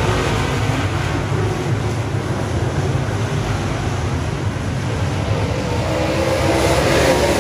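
A pack of dirt late model race cars running hard around a dirt oval, their V8 engines loud and steady together. Near the end, one engine note climbs.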